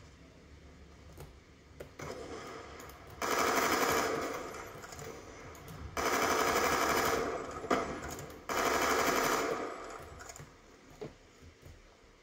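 Automatic gunfire from a first-person shooter video game: three bursts of rapid fire, each one to two seconds long, starting about three seconds in.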